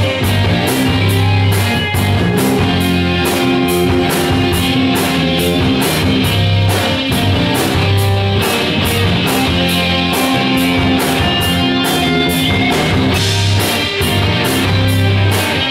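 Rock music led by guitar, with a steady drum beat and no singing.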